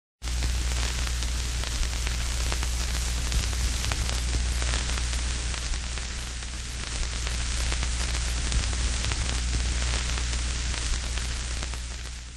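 Steady TV-style static hiss with a low electrical hum beneath it, dying away at the very end.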